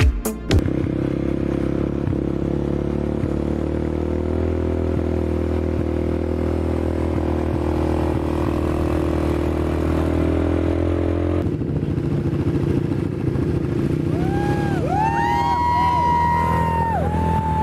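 ATV engine running steadily as the quad bike is ridden, its pitch creeping up slightly before a cut to another running ATV. Near the end the riders whoop with several rising-and-falling shouts, the last one held.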